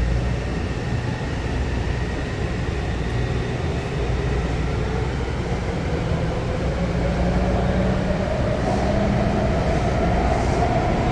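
Metro train running, heard from inside the car: a steady low rumble with a faint motor whine that slowly rises in pitch as the train speeds up.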